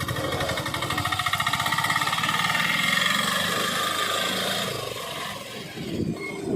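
A machine running with a fast, even pulsing rattle that eases off after about five seconds.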